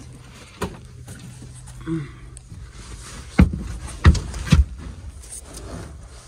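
Knocks and thumps from work on an old air handler being disconnected and removed: a light knock early, then three loud thumps in quick succession a little past the middle, over a low steady hum.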